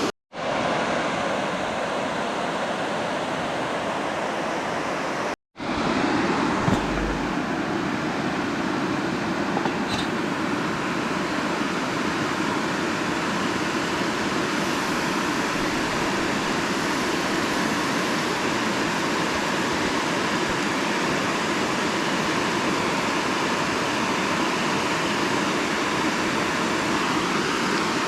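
Steady rushing of water pouring over a spillway. It cuts out completely twice for an instant, near the start and about five seconds in.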